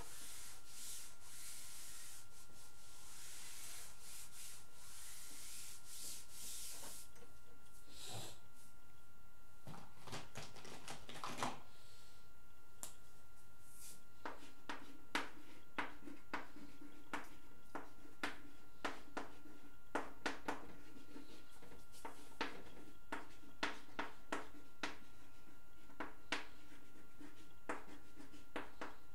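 A board eraser rubbing across a chalkboard for the first several seconds. Then chalk writing on the blackboard: a string of short, sharp taps and scratches as the letters are formed.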